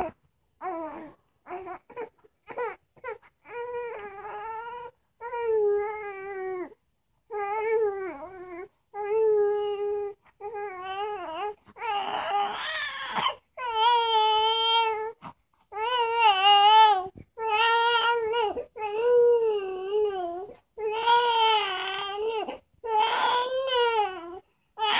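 Infant crying: short, broken fussing cries at first, building from about halfway into longer, louder wailing cries one after another with brief gaps for breath.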